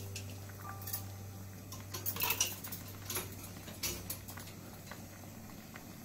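Pot of seaweed soup at a rolling boil, with scattered ticks and light pops, most of them about two to four seconds in, over a low steady hum.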